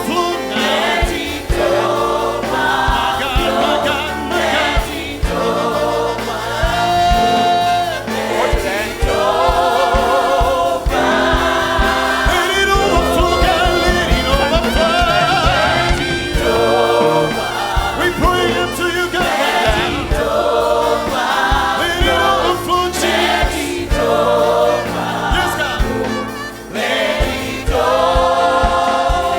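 Gospel worship music: a choir and congregation singing together over a live band with bass and drums.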